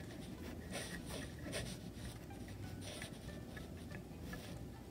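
Faint scratching and small clicks of fingers turning the metal screws of a saxophone ligature, snugging it down to hold the reed on the mouthpiece.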